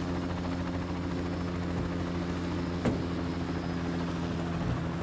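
Light helicopter hovering low over bush, its rotor and turbine making a steady drone that does not change. A single sharp click cuts in about three seconds in.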